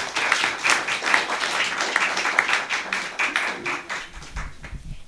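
Audience applauding, many hands clapping, the applause thinning and dying away about four seconds in.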